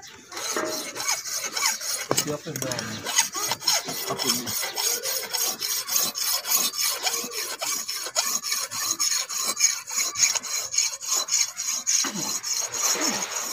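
Flat hand file rasping back and forth across a brass morchang (jaw harp) frame held against a wooden block, in a steady run of quick, even strokes that starts about half a second in. It is the hand-filing stage of shaping the brass frame.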